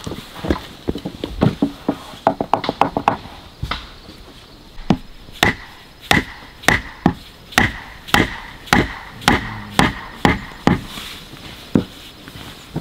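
Repeated chopping blows of a blade striking wood: a quick run of lighter taps, then steady strikes about two a second, each with a short ring.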